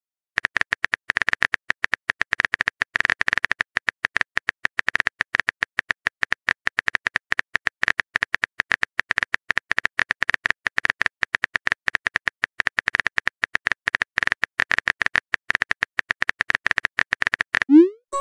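Rapid, continuous phone keyboard key-tap clicks, a typing sound effect as a text message is typed out. Near the end a short rising swoosh marks the message being sent.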